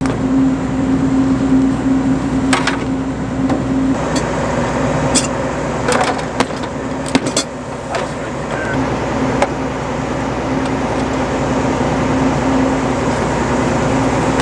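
Combine harvester running: a steady mechanical hum under broad machine noise, with several sharp clicks and knocks scattered through it. The hum weakens for a few seconds about four seconds in, then returns.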